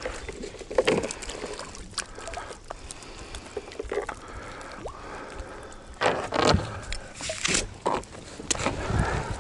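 A cast net being shaken out and handled on a concrete dock: irregular clattering and knocks from its lead weights and rope against the concrete, with the loudest knocks a little past the middle.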